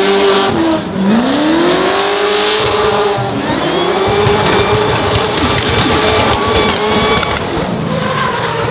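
BMW drift car's engine at high revs during a drift, its pitch climbing steeply about a second in and again about three seconds in, then held high and steady over the rush of spinning rear tyres. Near the end it rises once more.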